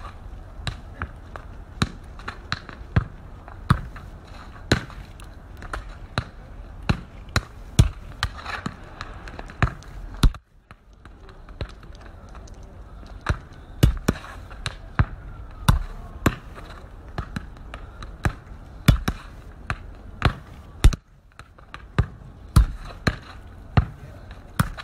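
A football being juggled with the feet: a run of short thuds as the ball is struck, about one to two a second, with a pause of a few seconds about halfway through. A steady low rumble lies underneath.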